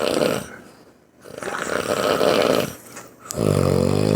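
A man snoring. There is a rasping snore a little over a second in, then a louder, buzzing snore near the end.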